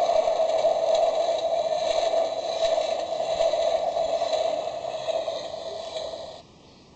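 Toy level crossing's small speaker playing its electronic crossing sound effect, a tinny steady tone over hiss, between its 'train is crossing' and 'train has passed' announcements. It fades a little and then cuts off suddenly near the end.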